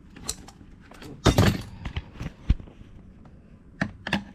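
Clicks and knocks of a plastic trim guard being worked loose and pulled from a car's door panel, loudest in a short clatter about a second and a half in, with a single thud a second later and more clicks near the end.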